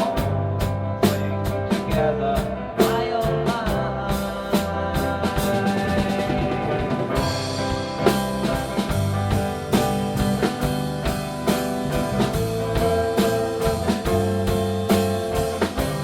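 Rock band playing: guitar, bass guitar and drum kit, with a steady drum beat and cymbal strokes.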